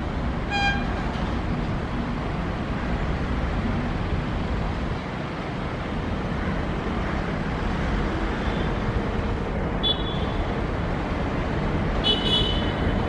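Steady rumble of a WAP-7 electric locomotive and its passenger train approaching, mixed with road traffic noise. A short high toot comes about half a second in, and brief high-pitched tones sound near the end.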